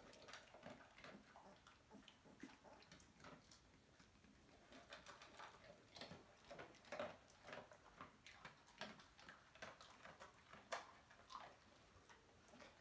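Faint, scattered clicks and taps from the adult Kuvasz lapping at a steel bowl, thickest in the middle, with a few brief squeaks from the newborn Kuvasz puppies.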